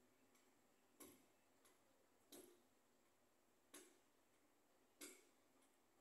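Near silence broken by faint sharp clicks at a fairly regular pace, about one every second and a half, each followed by a softer click.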